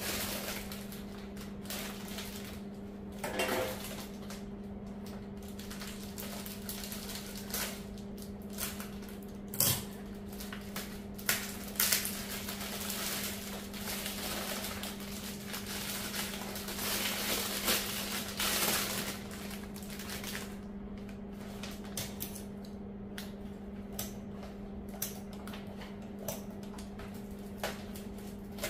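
Paper and cellophane bouquet wrapping crinkling and rustling as it is handled and unwrapped, with scattered light clicks and knocks of things set down on a granite countertop, over a steady low hum.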